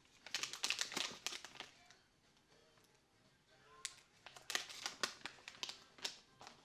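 Plastic packaging crinkling and rustling as it is handled, in two bursts: one at the start and a longer one from about four seconds in.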